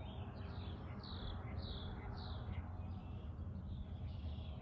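A songbird singing a run of short, falling notes, about two a second, over a steady low background rumble.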